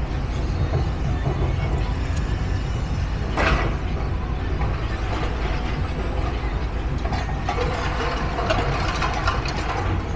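Heavy diesel engines running with a steady low rumble, a short hiss about three and a half seconds in, and rattling, clattering noise from about seven seconds in.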